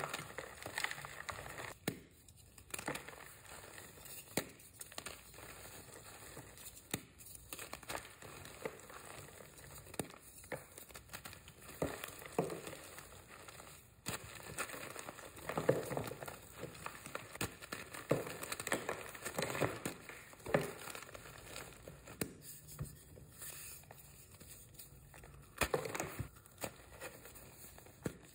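Reformed gym chalk blocks crunching and crumbling as hands squeeze them into loose powder: an uneven run of dry crackles and soft crunches, some louder than others.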